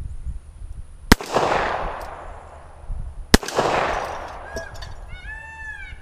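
Two shots from a Rock Island Armory M200 .38 Special revolver, about two seconds apart, each a sharp crack followed by a rolling echo that dies away over about a second.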